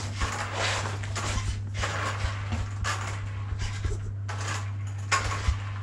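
Small electric RC quad bike driving in short starts and stops, its tyres and drivetrain scraping and rolling over the surface in repeated noisy bursts.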